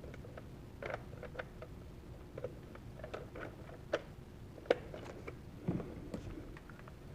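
A drone's small plastic parts being handled and worked apart: scattered light clicks and taps, with a duller knock about six seconds in.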